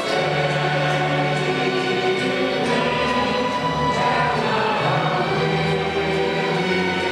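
A choir singing, with long held notes.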